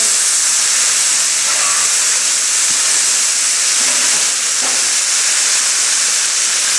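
A large cauldron (kazan) of wedding pilaf sizzling and hissing steadily.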